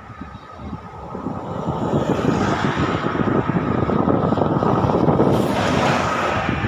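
A bus passing close by on the road, its engine and tyre noise building about a second in and staying loud.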